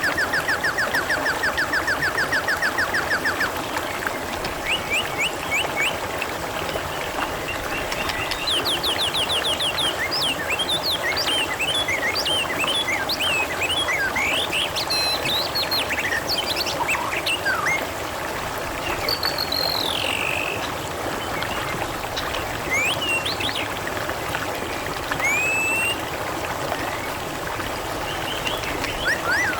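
Water trickling steadily, with small birds chirping and whistling over it. A fast rattling trill runs for the first three seconds or so, then gives way to scattered short chirps and rising and falling whistles.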